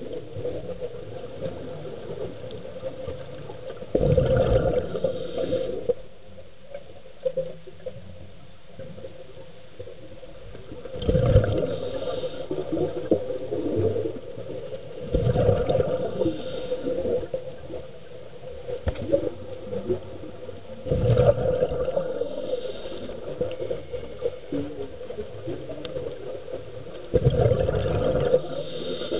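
Scuba regulator breathing underwater: a rush of exhaled bubbles about every five to six seconds, five times, over a steady hum.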